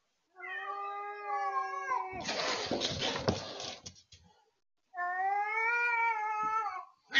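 Cats in a fight: a long, drawn-out caterwauling yowl, then a harsh burst of hissing and scuffling about two seconds in, then a second long yowl near the end.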